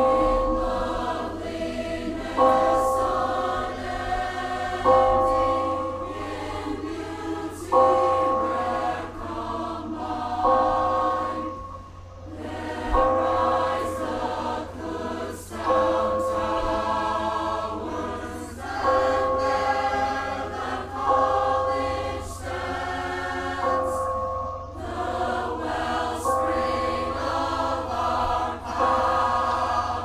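Tower bells ringing, a fresh strike about every two and a half seconds, each one ringing on and dying away into the next, with more than one bell sounding together.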